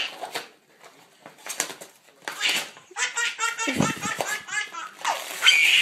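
A baby laughing: a belly laugh in quick repeated bursts, loudest near the end.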